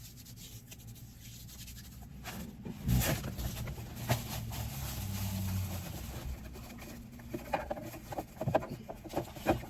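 Things being handled inside a car: scattered clicks and knocks, with a louder knock about three seconds in, over a low steady hum.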